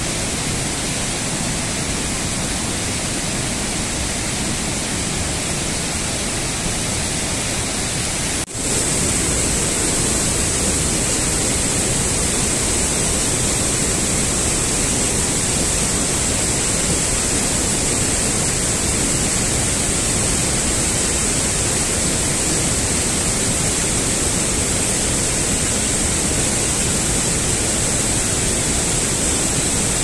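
Steady rushing of a waterfall and cascading water. About eight seconds in the sound briefly drops out and comes back a little louder and hissier.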